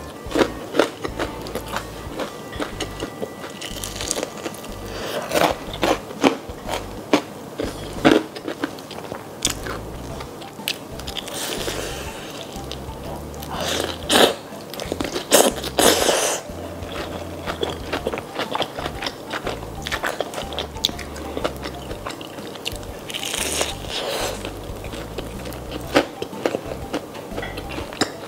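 Close-miked biting and chewing of a fried-chicken taco: crunching of the crispy breaded chicken shell, with louder crunches several times.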